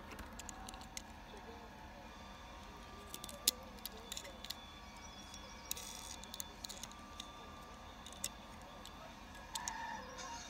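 Faint, irregular clicks and taps as a die-cast Hot Wheels Custom '69 Chevy pickup is handled and turned over in the fingers.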